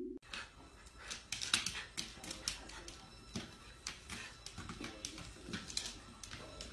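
Light, irregular clicks and taps of claws on a hard floor.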